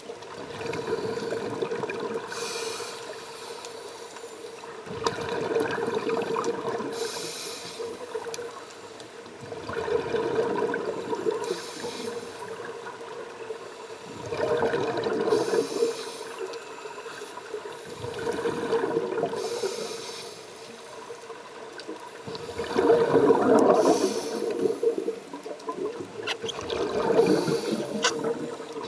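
Scuba divers breathing through their regulators underwater: exhaled bubbles gurgle out in bouts about every four to five seconds, with a short hiss between them.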